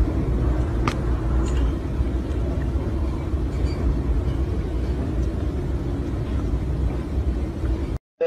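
Steady low rumble of background noise, with two faint clicks in the first couple of seconds; it cuts off abruptly near the end.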